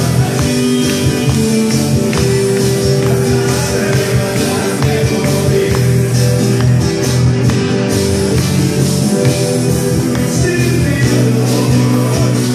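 Live acoustic rock band: strummed acoustic guitars and an electric guitar keeping a steady beat, with a male voice singing over them.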